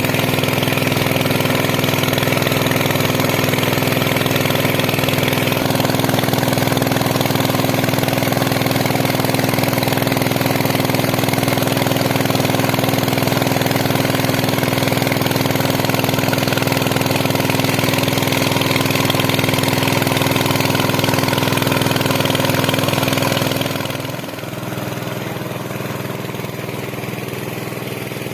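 Engine-driven water suction pump running steadily while it drains a pond. About three-quarters of the way through the sound gets noticeably quieter and duller.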